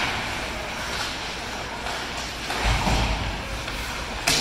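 Ice hockey game in play in an arena: a steady noisy wash, a low rumbling thud about three seconds in, and a sharp knock near the end.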